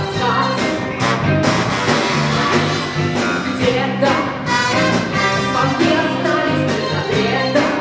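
A big band playing a jazz-pop song live, with brass and a steady drum beat, and a female singer's voice in the mix.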